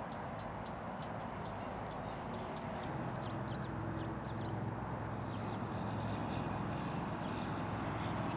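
A steady low engine hum that comes in about three seconds in, over a background of rapid light clicks.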